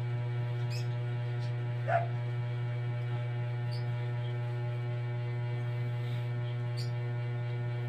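Steady electrical hum, with a single short dog yip about two seconds in and a few faint high chirps here and there.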